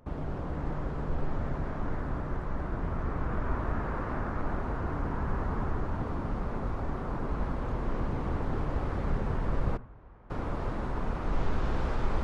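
Jet airliner engine noise heard outdoors in strong wind, a steady loud rush with heavy low rumble from wind on the microphone. It cuts out for about half a second near ten seconds in, then resumes.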